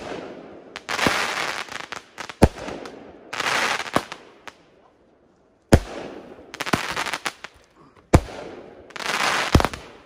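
Aerial fireworks bursting overhead: about seven sharp bangs, one every one to two seconds, with a hissing rush between them.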